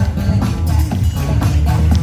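Loud music with a steady beat and heavy bass.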